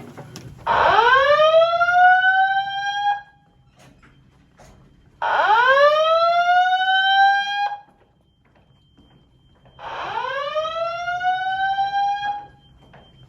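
Fire alarm speakers on a Simplex 2001-8005 audio-evacuation system sounding a slow whoop evacuation tone. It repeats three times, each sweep rising in pitch for about two and a half seconds, with a short pause between.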